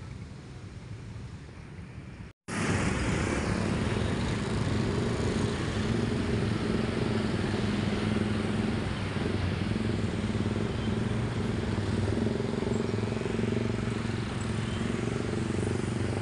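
Motorcycle and car engines running and idling in a queue of traffic at a railway level crossing: a steady engine drone. It jumps much louder after a brief break about two and a half seconds in.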